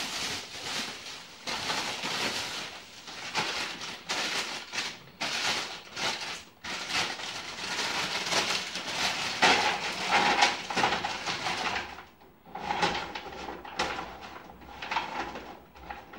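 Plastic bags rustling and crinkling as a bag of frozen curly fries is pulled from a plastic grocery bag and torn open, with the fries tipped out onto a baking tray.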